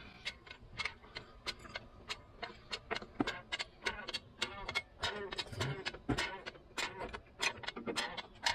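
Hydraulic floor jack being pumped to raise a lower control arm against a freshly fitted coil spring: a run of irregular metallic clicks, about two to three a second.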